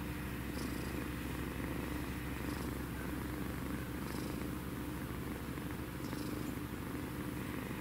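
Sleeping kitten snoring: a steady low pulsing rattle from its breathing, with a soft hiss of breath about every two seconds.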